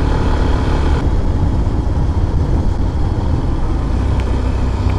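Yamaha FZS motorcycle's single-cylinder engine running steadily at road speed, heard from the rider's seat with heavy wind rushing over the microphone.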